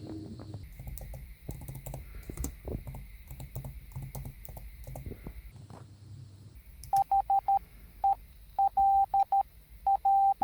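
Computer keyboard typing in quick, irregular clicks, then a steady single-pitch Morse code tone beeping out dots and dashes, starting with four quick dots.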